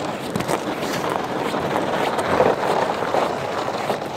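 Footsteps crunching over snow-covered lake ice, with wind rumbling on the microphone.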